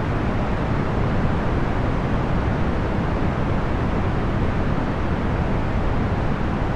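Procedurally generated box fan noise: a steady, unchanging whoosh of air, heaviest in the low end and thinning out toward the treble.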